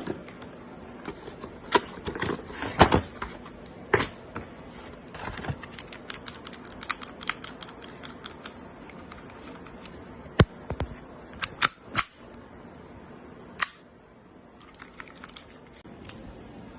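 Toy AAP-01-style airsoft pistol clicking and snapping as it is worked and fired: irregular sharp clicks, with two louder snaps a little past halfway.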